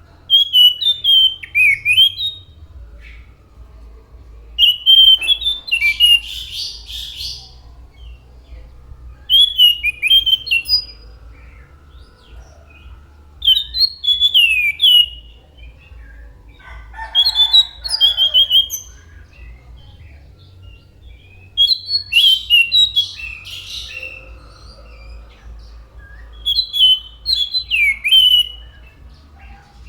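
An anis macan (scaly thrush) singing: about seven short phrases of quick sliding whistled notes, a few seconds apart, over a faint low hum.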